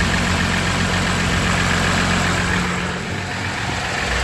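Audi Q7 engine idling steadily on its first run after a timing chain replacement, with no chain rattle.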